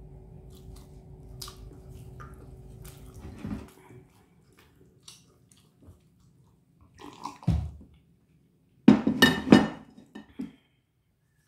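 Mouth sounds of eating a fried rice hot dog and sipping warm milk from a cup, with a low steady hum for the first few seconds and a short cluster of loud sharp mouth sounds about nine seconds in.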